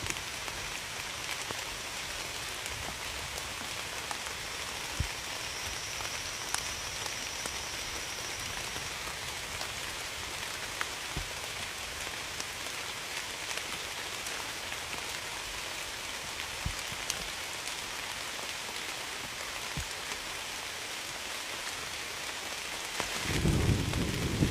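Steady rain falling, with scattered sharper drop impacts. Near the end a low rumble of thunder sets in and grows louder.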